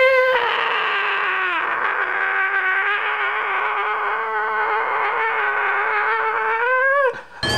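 A single long, high vocal wail held on one wavering note for about seven seconds, dipping slightly in pitch after the start and rising just before it cuts off.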